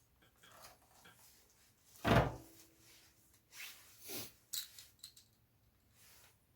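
Metal tools and parts knocking and clinking: one loud knock with a short ringing tail about two seconds in, then a few lighter clinks.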